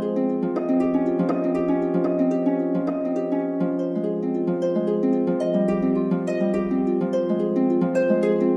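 Instrumental music of quick plucked-string notes over held chords.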